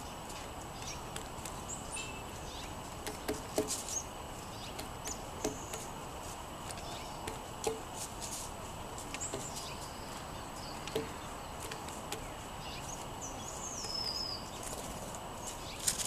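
Birds pecking at seed on a wooden picnic table: scattered sharp taps, with short high chirps from small songbirds, one a falling call near the end.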